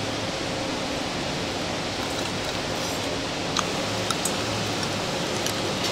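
Steady hissing restaurant background noise with a faint low hum, and a few light utensil clicks in the second half.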